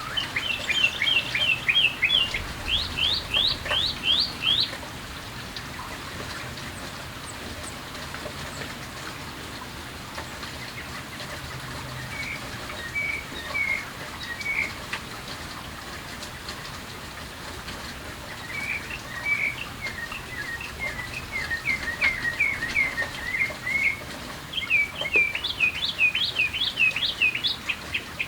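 Songbirds chirping in quick runs of short repeated notes, with a pause in the middle, over a steady hiss of light rain.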